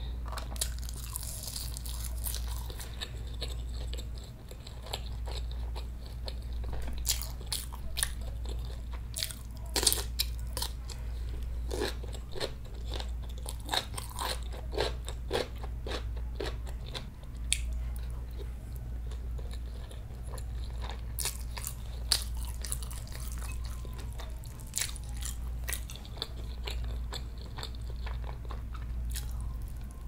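Close-miked eating: chewing and crunching of rice mixed with snow-crab roe and seasoned laver, heard as many short, irregular crunches and clicks over a low steady hum.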